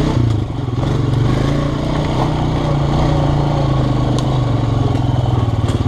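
Off-road vehicle's engine running steadily at low revs, with a few light clicks.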